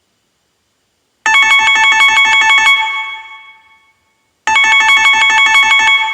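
Synthesized phone ringtone: a quick run of bright, bell-like notes lasting about a second and a half that rings out and fades, then plays again about three seconds later.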